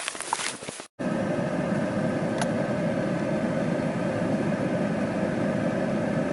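A moving vehicle's engine and road noise running steadily after an abrupt start about a second in, with a single short click a little over a second later. The first second holds light rustling that cuts off.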